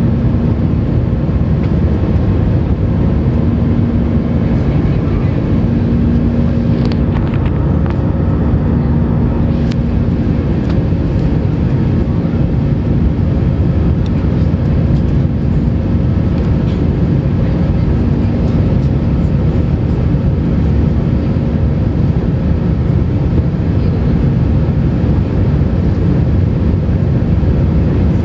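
Steady engine and airflow noise heard inside the cabin of an Airbus A320-200 in flight, with its CFM56-5B turbofans running and a constant low hum. A few faint clicks come about seven to ten seconds in.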